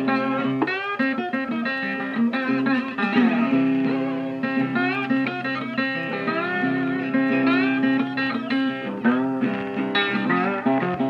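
Guitar-led music with a steady pulse of plucked notes, many of them sliding up in pitch.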